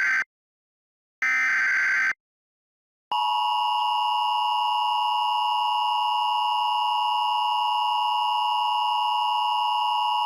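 Emergency Alert System signalling. The end of one short warbling SAME data burst, then a second full burst with a gap of silence between, then from about three seconds in the steady, harsh two-tone EAS attention signal.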